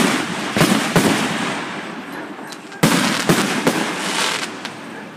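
Aerial firework shells bursting with sharp bangs, each followed by dense crackling. One bang comes right at the start, two more follow within the first second, and a second loud burst comes about three seconds in.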